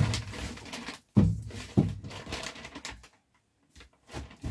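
Handling noise as someone rummages through a bag of packaged products: rustling with a few soft knocks, the clearest near the start and about a second and a half in, then a brief quiet moment about three seconds in before faint handling resumes.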